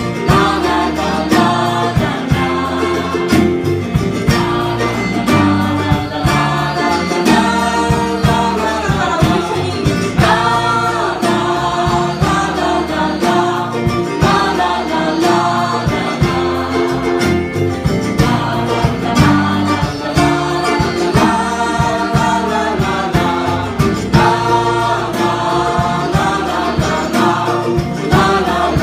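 Live band performing a bluegrass-style song: singing over strummed and plucked acoustic guitar, played continuously.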